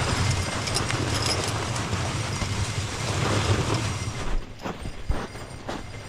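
Runners of a horse-drawn sled scraping and rumbling over snow and frozen ground as a pair of Clydesdales pull it. The rumble dies away about four seconds in, leaving scattered knocks.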